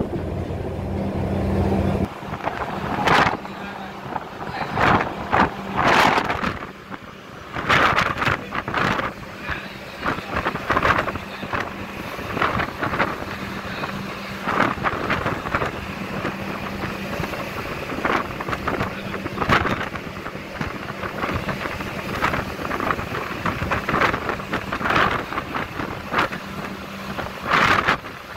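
Steady low drone of the Dharma Rucitra VIII ship's engines, under gusts of wind buffeting the microphone; a heavier low rumble fades out about two seconds in.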